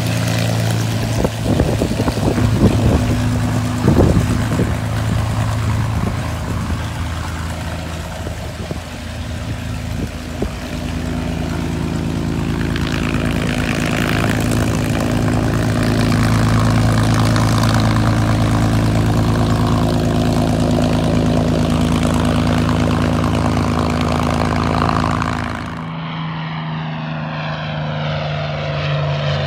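Propeller airplane engine running steadily, with a few knocks in the first few seconds. Near the end the sound changes to a sweeping, phasing drone.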